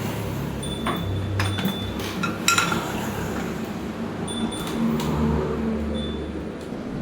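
Metal parts clinking and tapping over a steady workshop background, with two short stretches of low buzzing hum that fit an AC TIG welder working on aluminium.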